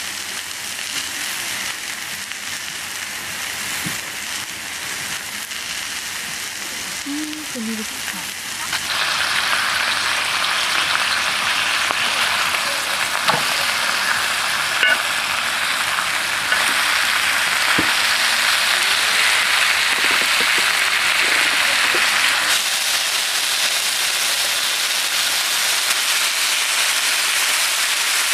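Beef steak sizzling on a hot griddle pan over a portable gas stove, a steady frying hiss that grows suddenly much louder about nine seconds in, with a few light clicks of metal tongs against the pan.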